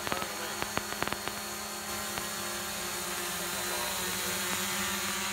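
DJI Mavic Pro quadcopter's propellers humming steadily in flight, with a quick run of clicks in the first second or so.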